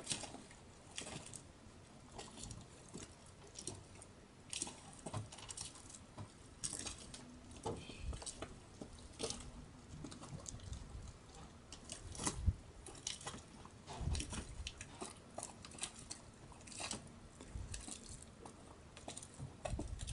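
Faint, irregular handling noise from a handheld camera: small clicks and rustles with a few soft low thumps scattered through.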